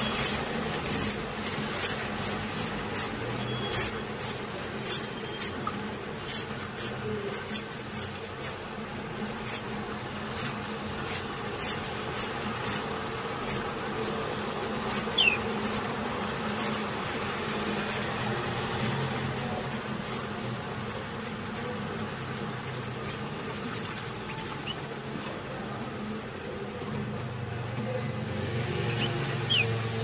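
Canary nestlings begging as the parent feeds them: rapid, very high-pitched cheeping, several calls a second. The cheeping pauses briefly about halfway through, then resumes and stops a few seconds before the end.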